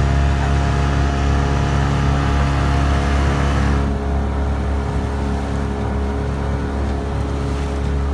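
Motorboat engine running steadily with a deep drone, over the rush of water and wind. The higher hiss drops away about four seconds in.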